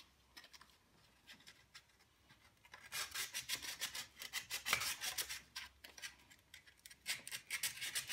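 Sandpaper rubbing back and forth along a brake line tube to scour off paint and rust residue before it is flared. It is faint at first, then turns into a run of quick scraping strokes from about three seconds in.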